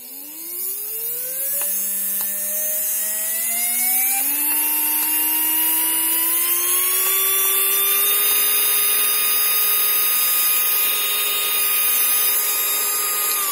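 Small 12 V DC motor driven through a PWM speed controller, whining and rising in pitch in steps as the duty cycle is raised. It then runs steady at full speed for the last few seconds.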